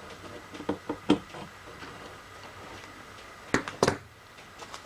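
Hand layout tools being handled on a metal workbench: a few light taps about a second in, then two sharp clicks a little before the end.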